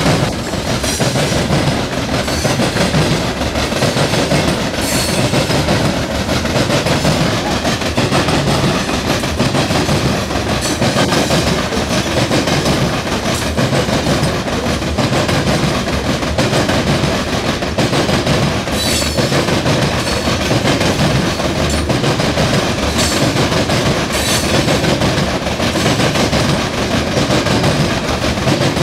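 Freight train of open-top coal hopper cars rolling past close by: a steady loud rumble with the clickety-clack of wheels over rail joints, and a few brief high squeals from the wheels.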